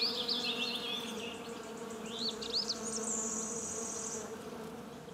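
Steady buzzing hum of a flying insect, with short high chirps in the first second and again a little past two seconds in, and a brief high steady trill about three seconds in.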